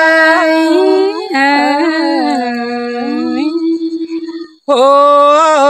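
A man singing a Thai (Tai Dam) folk song unaccompanied, drawing out long held notes that slide and waver in pitch. His voice breaks off briefly about four and a half seconds in, then comes back on a long sustained note.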